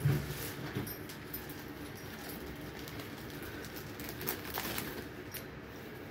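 A soft low thud at the start, then light rustling and a few small taps as a pack of paper tissues is handled over a tissue box, loudest about four to five seconds in.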